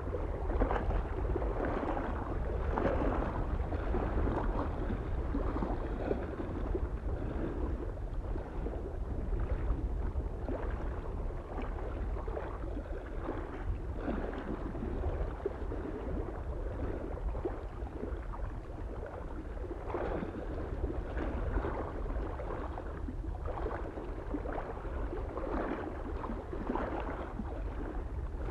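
Small lake waves lapping and splashing on the shore in irregular surges, over a steady low rumble of wind.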